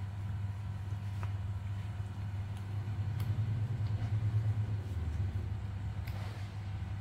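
A steady low mechanical hum that swells slightly midway, with a few faint clicks.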